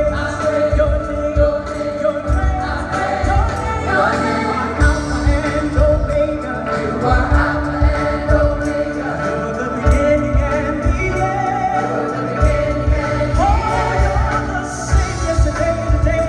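Gospel choir singing with a live band: held chords under the voices and a steady low beat of bass and drums.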